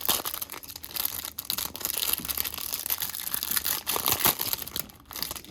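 Packaging of a trading-card hanger box, torn cardboard and plastic wrap, being crushed and crumpled by hand, a dense run of crackles and sharp clicks that thins out about five seconds in.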